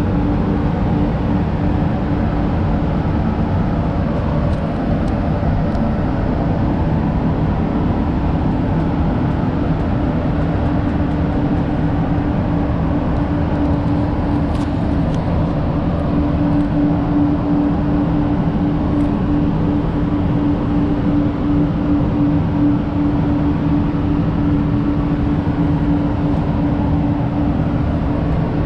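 Paint spray booth ventilation running: a steady rush of moving air with a constant low fan hum.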